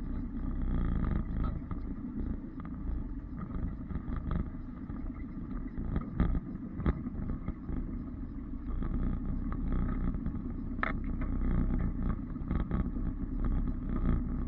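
Off-road 4x4 vehicle's engine running while driving, a steady low rumble with a few sharp knocks along the way.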